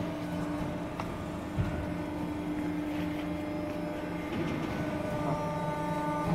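Steady hum of a 160-ton hydraulic press brake's pump motor running, with one low thump about a second and a half in.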